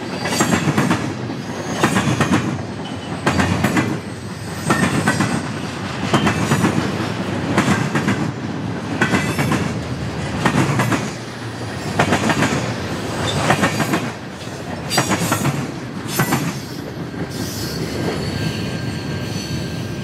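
Freight cars of a passing train rolling by, their wheels clacking over rail joints about every second and a half under a steady rumble. The clacks stop about three-quarters of the way through as the last cars go by, leaving a fainter steady rumble.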